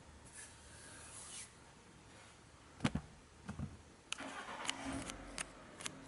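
A ThinkPad laptop booting into its BIOS setup: faint, scattered sharp clicks, a couple of dull knocks, and a low hum for a second or so from about four seconds in.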